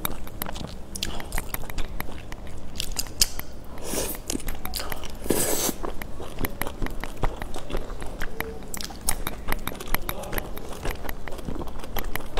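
Close-up mouth sounds of a person chewing saucy wide noodles, with many wet clicks and smacks. There are short louder rushes of noise about four seconds and five and a half seconds in.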